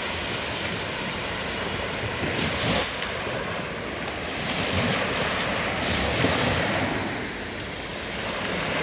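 Small sea waves breaking and washing up the sand at the shoreline, the surf swelling every couple of seconds as each wave runs in. Some wind rumbles on the microphone.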